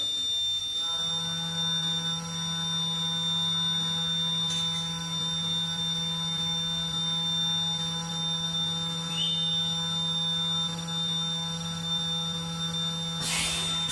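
Steady electric hum from the CNC machining center, a low tone with higher overtones that switches on about a second in and cuts off near the end, with a faint high whine underneath. A short loud hiss comes just as the hum stops.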